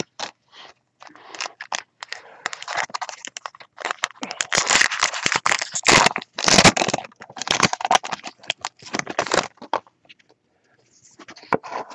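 Crinkling and crackling of a trading-card pack wrapper being torn open, with the cards handled: a run of scratchy rustles, densest in the middle, that stops about ten seconds in.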